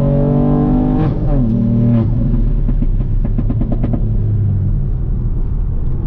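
Ford Fiesta ST Mk8's 1.5-litre turbocharged three-cylinder heard from inside the cabin: the revs climb, then the throttle lifts about a second in and the pitch drops. This is followed near the middle by a quick run of about ten crackles, and then the engine runs on at lower revs.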